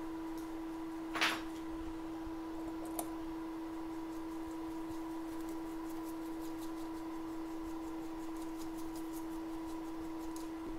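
A steady mid-pitched hum with a fainter higher overtone. A short rustling burst comes about a second in, and a faint click about three seconds in.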